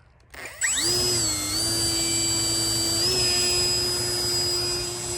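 Electric motor and propeller of an RC model Hurricane, on a 3-cell battery, spooling up with a quickly rising whine about half a second in, then running at a steady high pitch, stepping up slightly about three seconds in.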